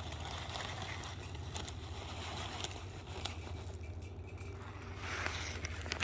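Faint rustling and light clicks of a bird feeder being filled with bird food, over a low steady rumble, with a louder rustle about five seconds in.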